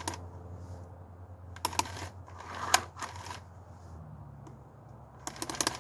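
Small plastic and metal clicks and clacks from handling the Oregon CS 1500 electric chainsaw while its chain tension is set, in short clusters about two, three and five and a half seconds in. A steady low hum sits underneath and changes pitch about four seconds in.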